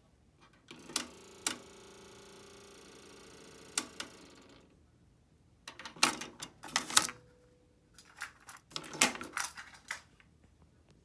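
Pioneer CT-W302R double cassette deck's tape mechanism, a deck that needs a new belt. A motor whirs steadily for about four seconds with a few clicks, then two bursts of rapid mechanical clicking and clacking follow, about a second in length each.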